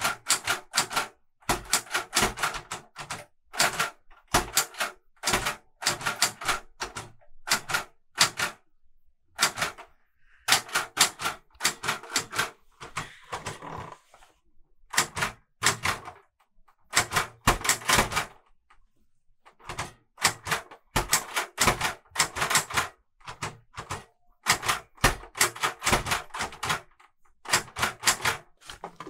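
Clover 810S manual Hangul typewriter being typed on by hand. The typebars strike in quick runs of keystrokes, broken by short pauses.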